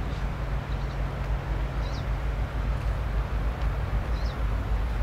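Steady low outdoor rumble with a fluttering bass, and two short high chirps, one about two seconds in and one about four seconds in.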